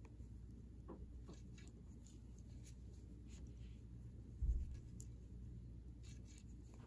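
Knitting needles clicking and scraping lightly as stitches are worked, with scattered small ticks and yarn rustle. A single soft low thump comes a little past halfway.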